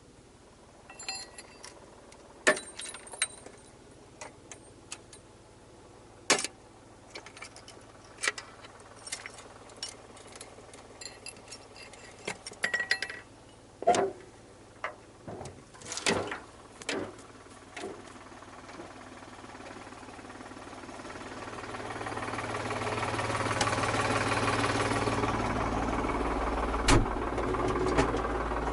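Scattered metallic clicks and knocks, then a tractor engine comes up over several seconds, gets louder and keeps running steadily through the second half.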